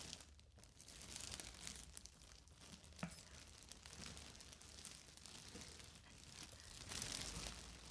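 Clear plastic poly bag softly crinkling and rustling as it is handled and lifted out of a cardboard box, with a sharp crackle about three seconds in and louder crinkling near the end.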